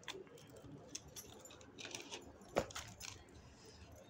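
Faint rustling and small taps of hands pressing and smoothing decorative paper onto a cardboard box lid, with one sharper knock about two and a half seconds in.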